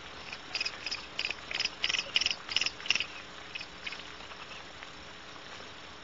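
Barn owl giving a quick run of about nine short, high chirping calls, about three a second, that stop about three seconds in.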